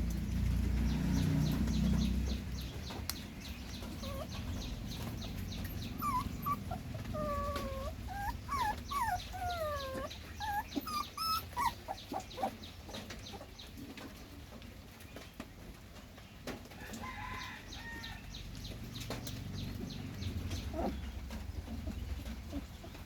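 Chickens clucking, a run of short falling calls in the middle, over a low rumble at the start and a steady high-pitched ticking background.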